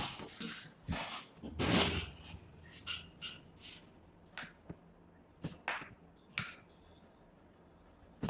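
Irregular short clicks and rustling noises of hands-on chiropractic handling, with one longer noisy burst about two seconds in.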